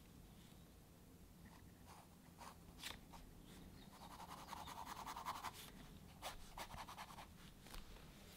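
Faint scratching of a pen sketching on paper, in short strokes, with a longer stretch of scratching about halfway through.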